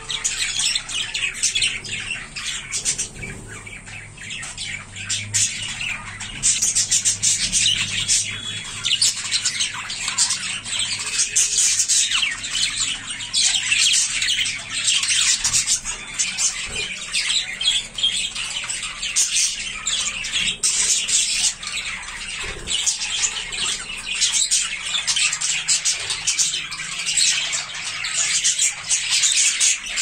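A flock of budgerigars chattering, with a dense, continuous stream of short squawks and chirps from many birds at once.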